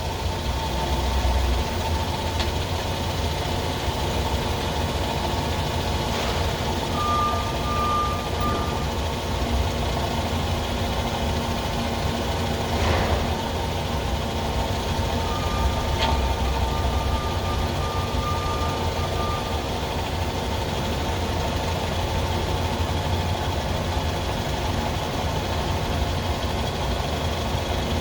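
FH680 machining center's spindle running steadily with a constant hum and a few fixed tones, a short high whine appearing twice; the owner suspects a spindle bearing as the source of the noise.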